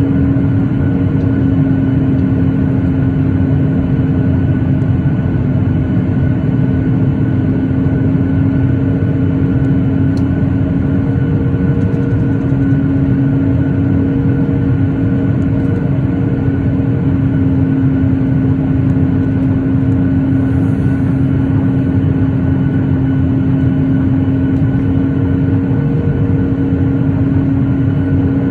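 Steady cabin noise inside a Boeing 737-8 airliner: the CFM LEAP-1B engines and rushing airflow, with a constant low hum.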